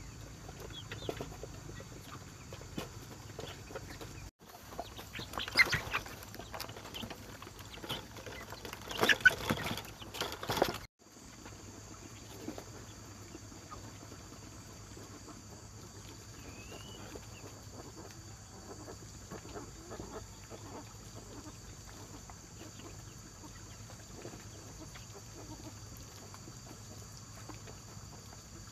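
Chickens and ducks calling and clucking, busiest and loudest in two stretches in the first half. The sound breaks off abruptly twice, then settles into a quieter steady background with a low hum and occasional calls.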